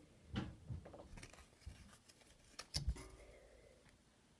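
Basketball trading cards being handled and shuffled: a few soft slides and flicks of card stock, with a louder thump a little under three seconds in.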